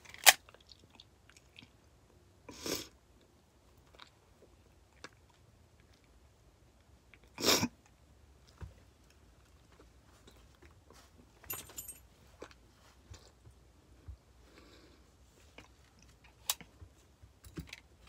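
Sparse close-up body and mouth noises from a person in a small room: a sharp knock at the very start, two short louder rushes of noise about 3 and 7.5 seconds in, and scattered small clicks and mouth sounds between them.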